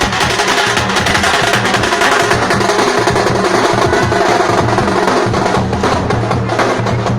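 Loud percussion-heavy music: drums played in a fast, dense, unbroken rhythm.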